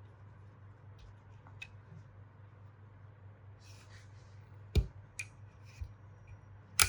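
Workshop handling of small parts: a few light clicks and a short hiss, then two sharp knocks about two seconds apart, over a low steady hum.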